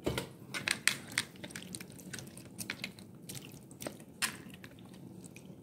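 Raw goat bones and meat being handled: a string of irregular sharp clicks and knocks with wet squelching, busiest in the first couple of seconds.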